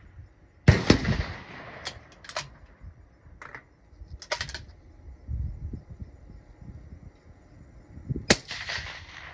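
Two rifle shots from a suppressed 6mm BR Norma rifle, one about a second in and another near the end, each a sharp report with a short echoing tail. Several lighter sharp clicks fall between them.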